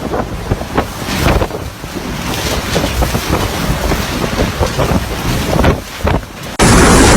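Typhoon wind buffeting the microphone in gusts, with scattered cracks and knocks. Near the end it jumps suddenly to a louder, even rush of wind noise.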